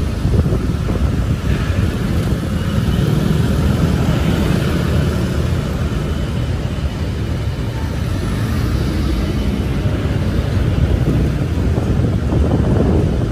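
Steady city street noise: road traffic running past with a low rumble, and wind buffeting the microphone.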